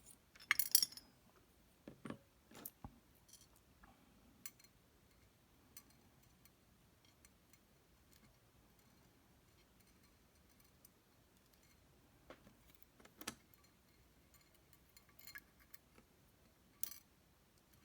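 Small metal lock pins from a gutted Lockman Megacross SP cylinder being handled and set into a tray: scattered light clicks and taps with quiet stretches between.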